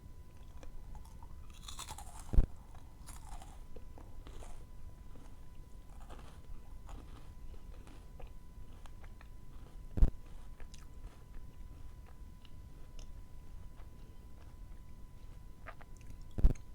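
Close-miked chewing and crunching of food, with three loud, sharp thuds: one near the start, one midway and one at the end.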